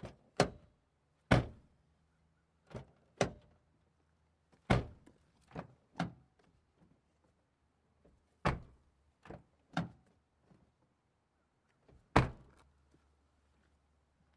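Car door shut again and again: a dozen or so sharp thunks at uneven gaps, some heavy and some lighter, with a short ring after each.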